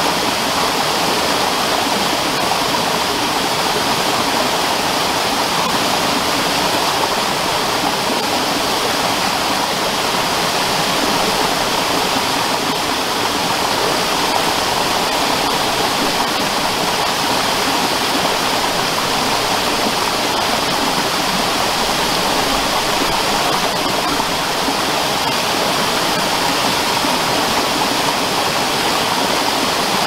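Small forest waterfall cascading over boulders into a rocky stream: a steady, even rush of water.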